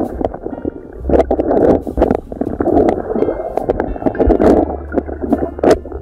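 Stream water heard from underwater by a submerged camera: a muffled, rumbling rush of flowing water that swells and dips, with scattered sharp clicks.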